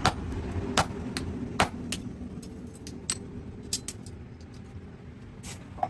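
Irregular metal-on-metal knocks and clinks from blacksmith's work on steel: a few loud strikes in the first two seconds, then lighter, quicker clinks, over a low steady rumble.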